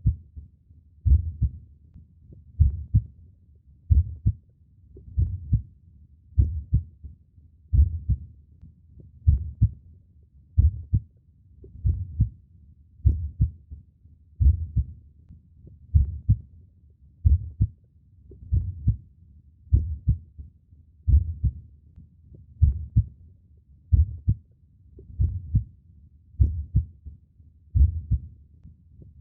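Human heartbeat: a slow, steady lub-dub of paired low thumps, about one beat every second and a third.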